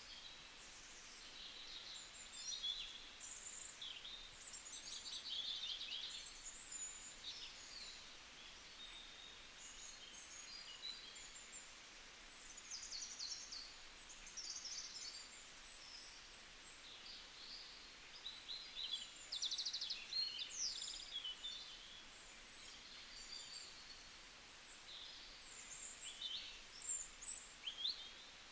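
Several small birds chirping and trilling throughout, with short high phrases and rapid trills, several overlapping at times, over a faint steady hiss of forest background.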